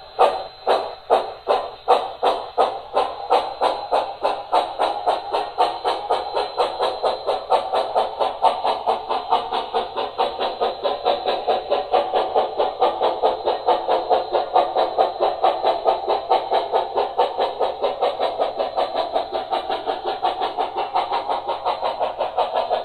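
Steam exhaust chuffs from the Soundtraxx Econami sound decoder in an HO scale Santa Fe 4-8-4 steam locomotive model, played through its small onboard speaker. The chuffs start about one a second and quicken over the first several seconds as the model gets under way, then keep a fast, even beat.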